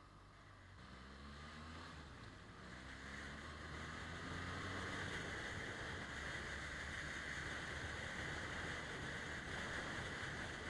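BMW R1200GS flat-twin motorcycle riding along, heard through a bike-mounted action camera: a low engine drone whose pitch climbs over the first few seconds as the bike accelerates. Rushing wind and road noise on the microphone grows louder about three seconds in and then holds steady.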